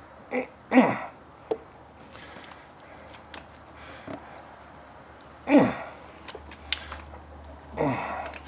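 A man grunting with effort while straining on a ratchet to break loose a tight oil filter: a few short grunts, each falling in pitch, with light metallic clicks from the socket and ratchet between them.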